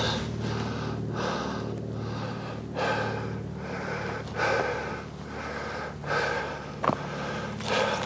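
A hiker breathing hard, about one breath a second, while scrambling over rock, with a sharp scuff of a step about seven seconds in.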